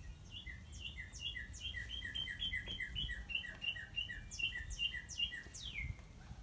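Northern cardinal singing: a rapid run of repeated slurred whistled phrases, about three a second, ending in one long falling note.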